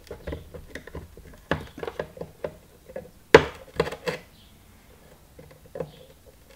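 Side cutters snipping through a flat metal earth braid: a series of small sharp clicks and snips, the loudest about three and a half seconds in.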